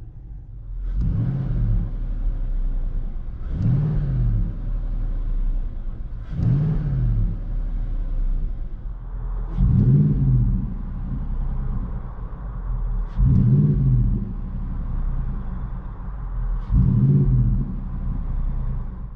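Nissan Titan 5.6L V8 exhaust heard from inside the cab: a steady idle rumble with six quick throttle blips, each a short rise and fall in engine pitch.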